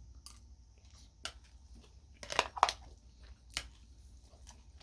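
A person eating a mouthful of pesto pasta: quiet chewing and mouth sounds, with a few short clicks scattered through it.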